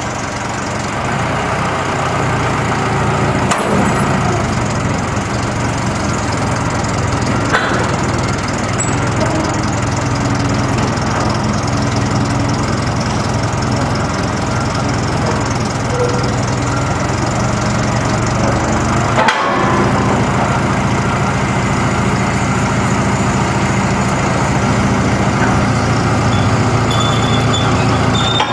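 A heavy engine running steadily, with a few sharp knocks: one near the start, one about seven seconds in and one a little past halfway.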